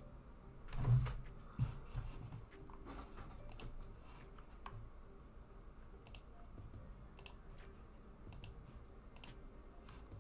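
Scattered sharp clicks and light knocks, with a dull thump about a second in.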